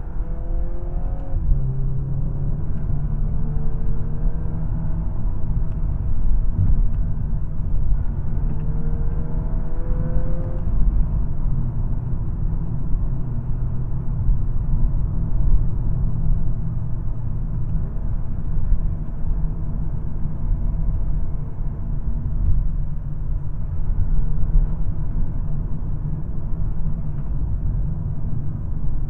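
2022 Volkswagen Golf R driving at speed: a steady road and tyre rumble, with the 2.0-litre turbocharged four-cylinder engine note rising as it accelerates near the start and again about ten seconds in.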